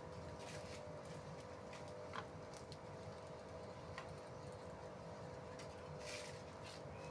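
Domestic pigeons pecking seed off stony ground: faint, irregular light taps and ticks, a little louder about two seconds in and around six seconds in, over a steady low hum.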